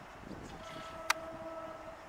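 A steady, horn-like pitched tone held for just over a second, over a low outdoor background noise, with a single sharp click about a second in.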